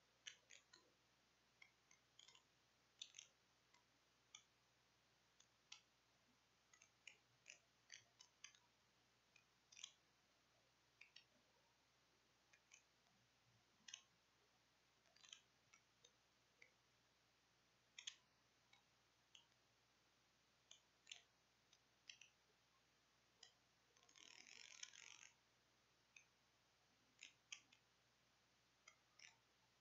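Near silence with faint, scattered clicks, about one or two a second at an uneven pace, and a short scratchy noise lasting about a second near the end.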